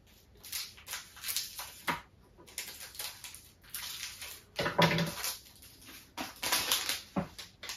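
Foil wrapper of a Pokémon trading card booster pack crinkling and tearing as it is ripped open, in irregular rustles with the loudest burst about five seconds in.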